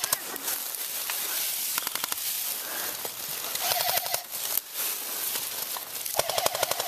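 Airsoft electric guns firing. Two short full-auto bursts, each a rapid run of shots over a steady whine, come a little past the middle and again near the end. Scattered single shots crackle over a steady hiss in between.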